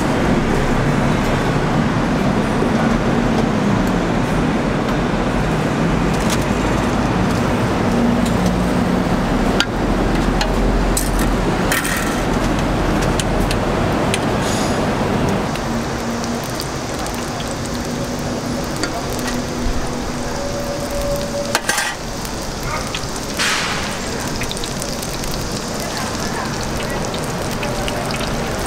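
Battered squid strips deep-frying in a wok of hot oil: a steady sizzle, with a few sharp clicks of metal tongs.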